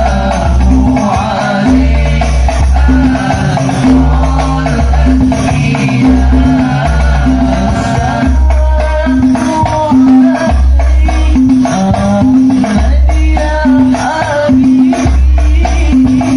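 Hadrah banjari devotional music: frame drums with heavy bass strokes and jingling percussion keep up a driving rhythm under a sustained melody.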